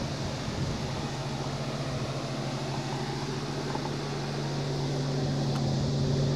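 Nissan 350Z's 3.5-litre V6 idling: a steady low hum that comes through about a second in, over a hiss of wind on the microphone.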